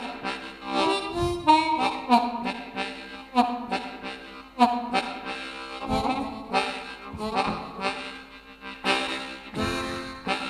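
Low F harmonica playing a steam-train imitation: a steady rhythm of chords, each with a sharp attack.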